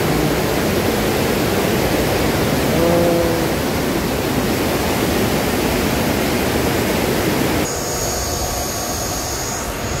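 River water rushing steadily through a steel intake grate at a hydropower weir. Near the end it cuts to a quieter hiss with a faint steady high whine.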